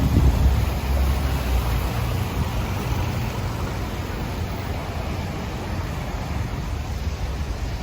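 City street traffic noise: a steady hiss of passing vehicles over a low rumble, with wind on the microphone.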